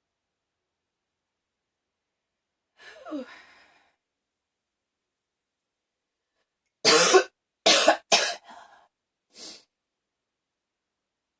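A woman coughing: a faint throat sound about three seconds in, then a burst of three loud, rough coughs in quick succession, trailing off into two weaker ones.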